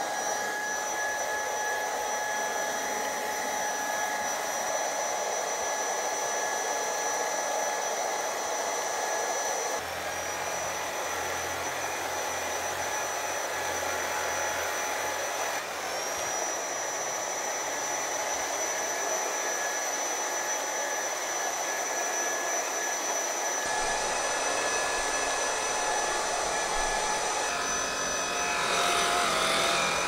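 VACLAB X11 Pro cordless stick vacuum cleaner running, a steady high motor whine over the hiss of rushing air. The whine dips briefly a couple of times.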